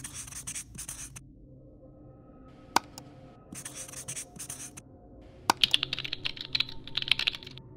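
Marker-pen strokes scratching on a whiteboard in short bursts, then a quick run of computer-keyboard typing clicks lasting about two seconds near the end.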